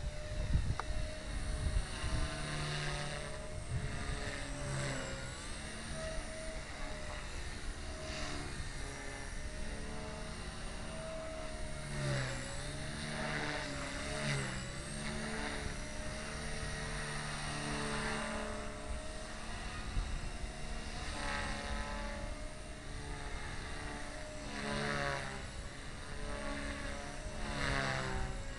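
Align T-Rex 250 electric RC helicopter in flight. A steady motor-and-gear whine dips briefly in pitch twice around the middle as the rotor is loaded, and the rotor noise swells and fades several times as it manoeuvres.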